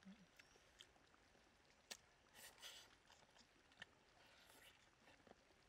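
Faint eating sounds from a man biting and sucking at a cooked crocodile head: scattered lip smacks and clicks, with a couple of short sucking noises a little past the middle.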